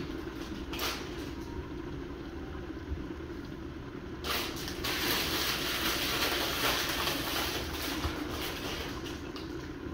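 Pot of curry chicken simmering under a glass lid: bubbling and a steady hiss of steam, which grows louder about four seconds in, over a low steady hum.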